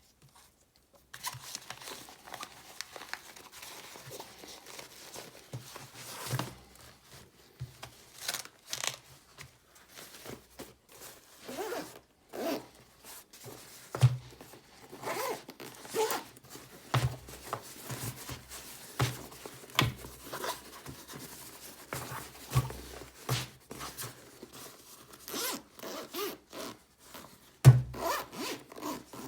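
Zipper on a zippered storage case being run open and shut, mixed with rustling, scraping and small knocks as items are handled and packed into the case. The loudest knocks come about halfway through and near the end.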